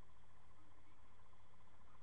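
Faint steady background hiss with a low hum and a thin steady tone, with no distinct sound events.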